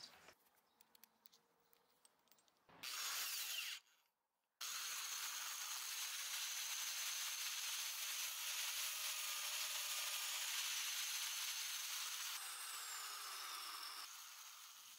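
Restored 1980s Wolf electric drill running: a short burst, a brief pause, then a long steady run with a high motor whine as the twist bit bores into wood. Near the end the whine falls in pitch and the drill winds down.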